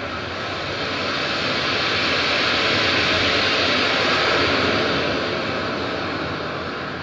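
A rushing, whooshing noise from the performance's recorded soundtrack, swelling for about three seconds and then slowly fading away, with no tune or voice in it.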